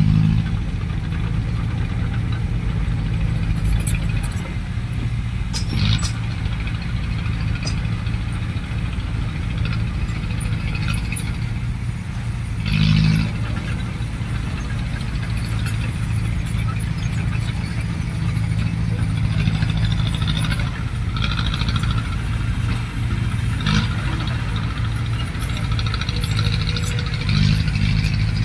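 Diesel earthmoving machinery running steadily with a low engine hum, broken by a few short knocks.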